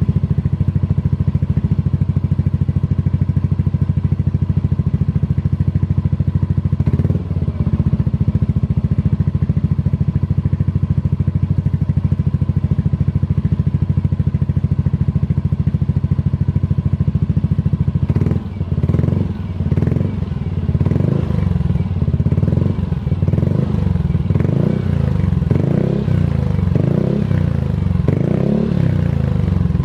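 Yamaha NMAX scooter's single-cylinder four-stroke engine idling steadily through an R9 Misano aftermarket exhaust, with one short blip about seven seconds in. From a little past halfway, the throttle is blipped over and over, about once a second.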